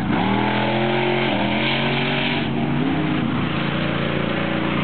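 Chevy pickup truck's engine revving hard through a mud course, its pitch rising and falling with the throttle. A brief hiss comes in about two seconds in.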